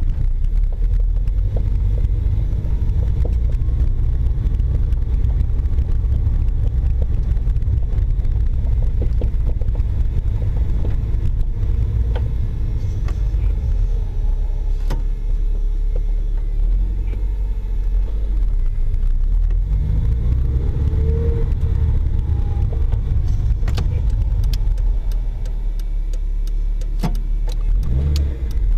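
Toyota MR2 Spyder driving over an uneven road: a steady low rumble of road and engine, with a few sharp knocks scattered through it. The knocks are a suspension clunk from the right-hand BC Racing BR coilover, and it persists even after every bolt and nut has been checked.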